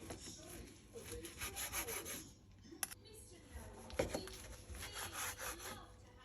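A kitchen knife sawing back and forth through food on a wooden cutting board, in two runs of quick strokes, with a sharp knock between them.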